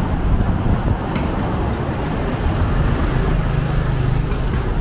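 Street traffic: vehicle engines running close by, with a steady low engine hum that grows stronger in the last second and a half.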